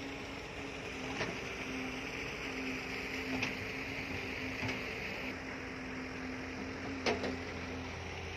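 Steady hum of a diesel engine running at constant speed, with a few short clicks, the loudest about seven seconds in.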